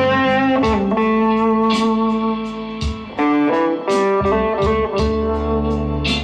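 Fender Player Stratocaster HSS Plus Top electric guitar playing picked single-note phrases, notes starting sharply and some left ringing.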